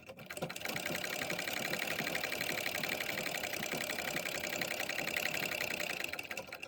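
Electric sewing machine running steadily, stitching a seam with a rapid, even rhythm, then stopping near the end.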